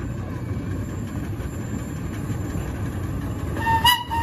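Miniature park train rumbling along the rails as it approaches. Near the end, the 2-8-2 steam locomotive's whistle starts to blow: a steady high tone that breaks off briefly, then carries on.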